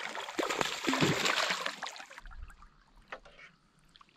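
Water splashing and sloshing as a hooked fish thrashes at the surface beside a kayak. About two seconds in it cuts off abruptly to a quiet background with a few faint clicks.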